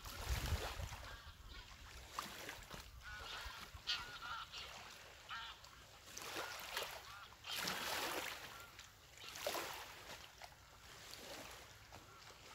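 Faint swishing rustle of a jacket with each side-to-side swing of the arms in a twisting exercise, soft swells about every one to one and a half seconds.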